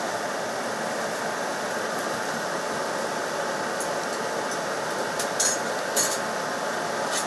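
Steady whooshing run of a conveyor grill for pork jerky, with a few sharp clicks near the end.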